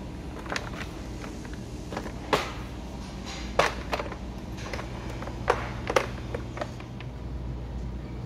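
Supermarket interior ambience: a steady low hum with scattered sharp clicks and knocks, the loudest a little past two seconds in, at about three and a half seconds, and twice between five and six seconds.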